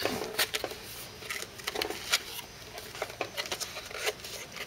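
Trading cards and their packaging being handled on a table: scattered light clicks, taps and rustles at irregular intervals.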